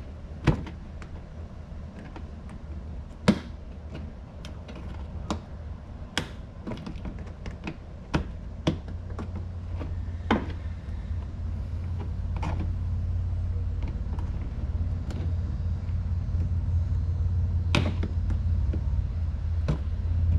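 Irregular sharp clicks and taps of a hand tool working the plastic clips and fasteners of a car's fender liner, the loudest about half a second in and at about three seconds. A low rumble underneath grows louder toward the end.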